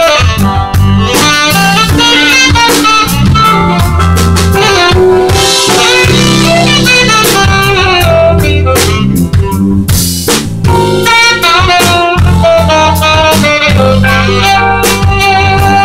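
Live jazz band playing: a saxophone carries a melodic line over a busy drum kit, with low notes sustained underneath.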